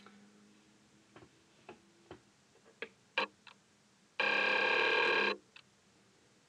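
A few light clicks and taps, then a loud, steady buzzing tone with many overtones that lasts about a second, starting about two-thirds of the way through.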